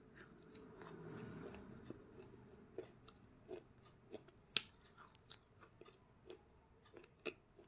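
A person chewing a mouthful of crunchy food close to the microphone, lips closed: scattered small crunches and mouth clicks, with one sharper crunch about four and a half seconds in.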